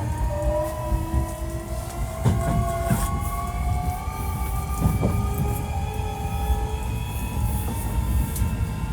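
Hankyu 1300 series train's Toyo IGBT inverter and traction motors whining, several tones rising slowly in pitch as the train gathers speed, over a steady wheel and track rumble with a few knocks from the rails.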